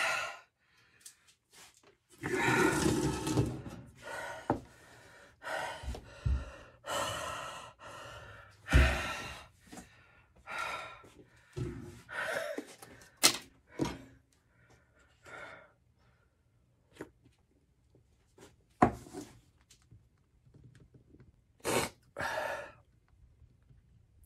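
A man breathing hard, gasping and blowing out sharp breaths in short irregular bursts, reacting to the burn of extremely hot pepper jerky. A few knocks and a sharp click come from his paper cup and metal spoon.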